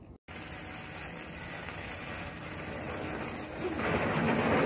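Ground fountain firework spraying sparks: a steady rushing hiss that grows louder, stepping up about four seconds in.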